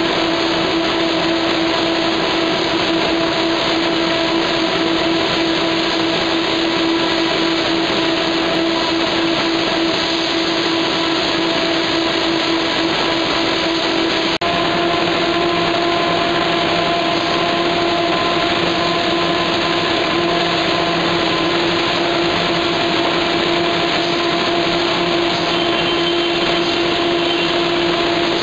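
Corrugated board production line (corrugator) running: a loud, steady machine noise with a constant hum tone over it, briefly cut off about halfway through.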